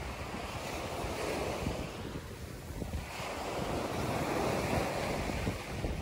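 Sea waves washing onto the shore in surges, with wind buffeting the microphone.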